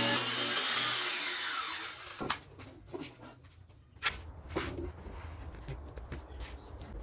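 A power saw cutting wood runs for about the first second, then is switched off and winds down with a falling whine. After that come a few sharp knocks.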